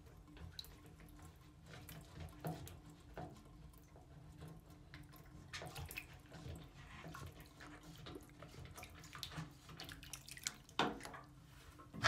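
Faint splashing and sloshing of standing bathwater as a hand twists the metal drain stopper loose in a clogged tub, with small scattered clicks and a sharper click near the end.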